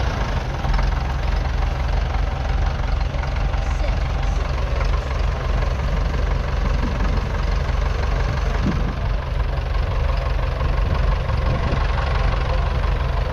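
A 1951 Nuffield Universal DM4 tractor's 3.4-litre four-cylinder diesel engine running steadily with a diesel knock, under load as it pulls a two-furrow mounted plough through the ground.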